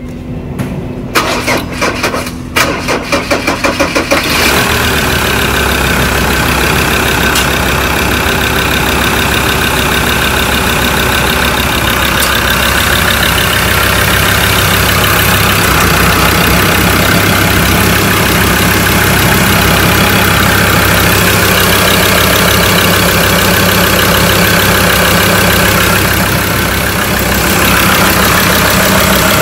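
Mazda BT-50 engine being started: the starter cranks it for about three seconds with a quick, pulsing rhythm, it catches about four seconds in, and then it idles steadily.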